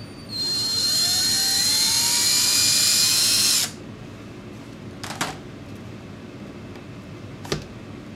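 Cordless drill boring a small hole through the bottom of a plastic overflow pipe: the motor whine rises in pitch as it spins up, runs steady for about three seconds, then stops suddenly. Two light knocks follow a little later.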